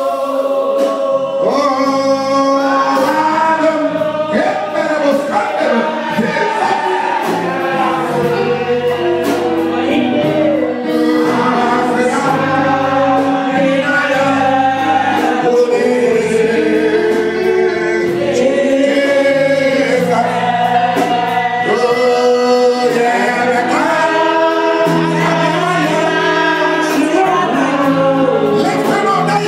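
Gospel music: a choir singing over held bass notes.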